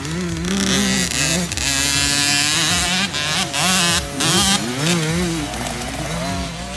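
Husqvarna TC 50 two-stroke 50cc motocross bike engine, its revs rising high and dropping again over and over as the rider opens and closes the throttle around the track.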